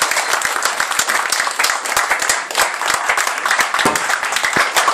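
Applause: many hands clapping at the end of a song.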